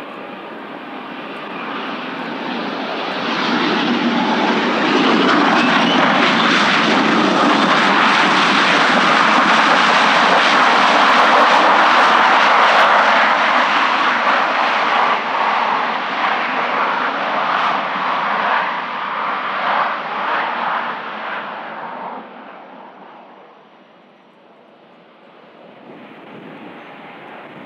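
Dassault Falcon 7X three-engine business jet passing on landing: its turbofan engines grow loud over a few seconds, hold loud for about ten seconds, then fade away.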